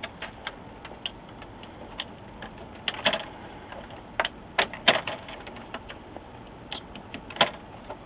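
Irregular small clicks and taps as squeeze-type plastic backlight plugs are unplugged one after another from an LCD monitor's lamp connectors, with fingers working against the sheet-metal chassis.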